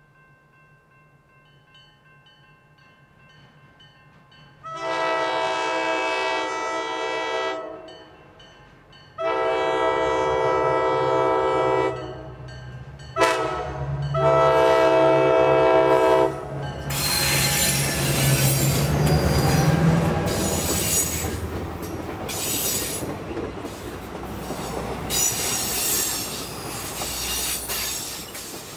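Grade-crossing bell ringing faintly, then a Nathan K5LA five-chime horn on an EMD FP9A locomotive sounds the crossing signal: long, long, short, long. The FP9A locomotives and passenger cars then pass close by, their diesel engines rumbling under the clatter of wheels over the rail joints.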